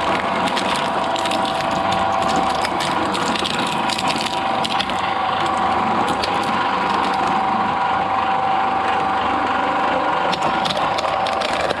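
Shredder machine running with a steady whine while its cutters crush and break up material, giving a dense, continuous crackle of sharp cracks and snaps.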